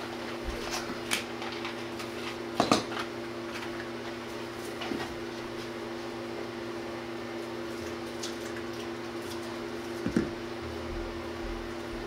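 A few short clicks and knocks of small parts being handled at a ceramic pedestal sink, the loudest about two and a half seconds in and another near the end, over a steady low hum.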